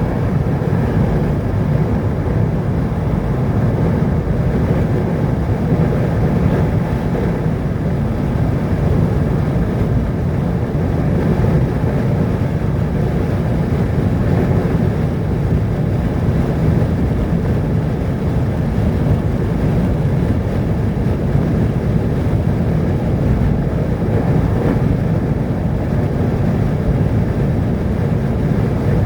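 Steady low rumble of a vehicle in motion, even throughout with no distinct events.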